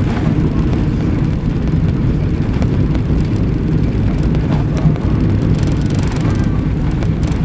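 Cabin noise inside a McDonnell Douglas MD-82 during its takeoff roll: the rear-mounted Pratt & Whitney JT8D turbofans at takeoff power and the rushing of the airframe make a loud, steady, deep noise.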